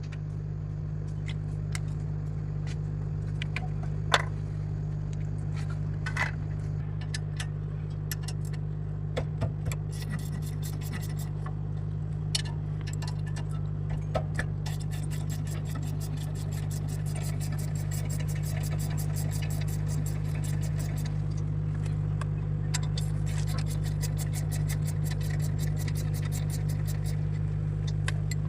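Metal hand tools working on a car's wheel and brake: scattered clinks and knocks, then from about halfway in a long run of rapid, even clicking, all over a steady low hum.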